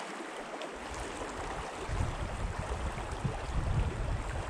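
River water running steadily, with a low, uneven rumble joining in about a second in and growing stronger from about two seconds on.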